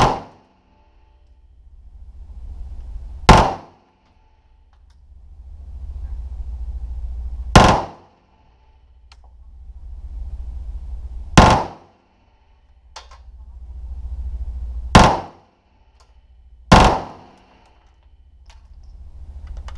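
A short carbine fired six times in an indoor shooting range, one loud report every few seconds with a brief echo after each, and a low rumble in between.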